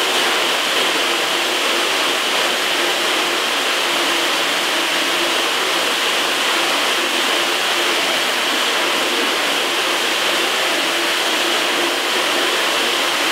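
Pistol-grip hose nozzle spraying water in a steady hiss onto a screen-printing screen, washing out the unexposed emulsion to develop the stencil.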